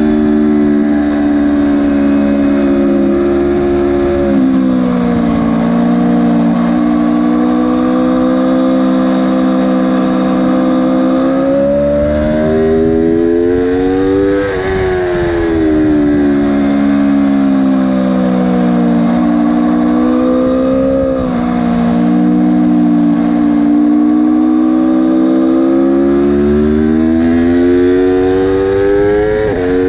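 Aprilia superbike engine at race pace, heard from on board: the engine note climbs and falls through gear changes and throttle, with sharp drops in pitch at upshifts, about four seconds in, around two-thirds of the way through and near the end. Wind rush runs under it.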